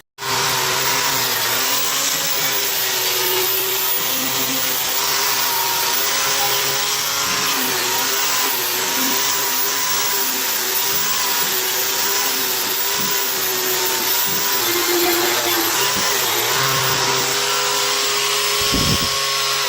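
Electric power tool running steadily under load, with a whine whose pitch wavers slightly as it is worked. It starts abruptly, gives one low knock near the end, and begins to wind down at the very end.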